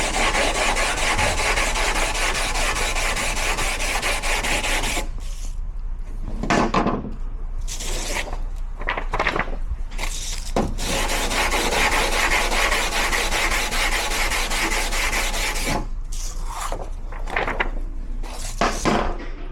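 Rear brake rubbing with a harsh, rasping scrape rather than a clean tonal squeal. It goes in long stretches, broken by short pauses about five seconds in and again about sixteen seconds in.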